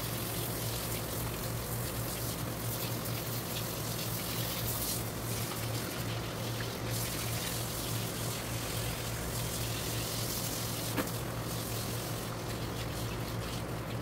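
Water from a hand-held hose shower head spraying onto a dog's wet coat and splashing on a tiled floor: a steady hiss of running water, with a steady low hum underneath.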